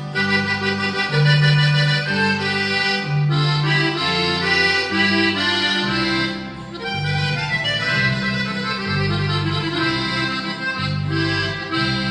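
Accordion playing a melody over a low electric bass line, a norteño-style band intro with the bass note changing about once a second.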